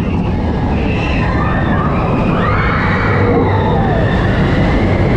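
Roller coaster running along its track, a steady rumble with wind rushing over the microphone. Riders scream over it about two to three seconds in.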